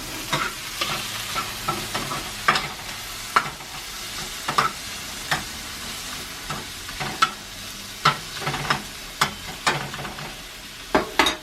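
Tomatoes frying in olive oil in a pan, a steady sizzle, while a utensil stirs them, knocking and scraping against the pan at irregular intervals, with a quick run of louder knocks near the end.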